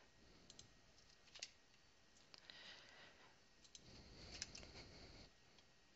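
Faint, scattered clicks of a computer mouse and keyboard during a copy and paste, over near silence.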